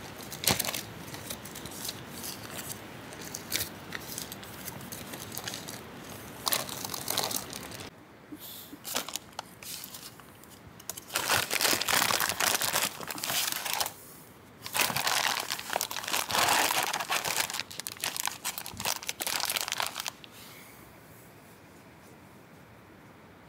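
Crinkly material being crumpled and handled. Light scattered rustles at first give way to two long bouts of loud crinkling past the middle, which stop a few seconds before the end.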